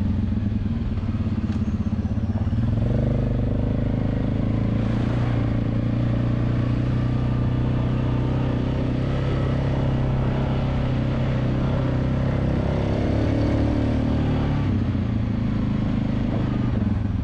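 ATV engine running steadily while riding a trail, picking up revs about three seconds in and easing off near the end.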